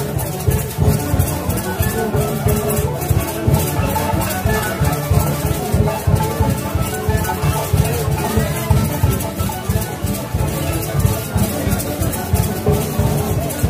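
Live festive band music with a steady drumbeat under a melody, and rattling percussion on top.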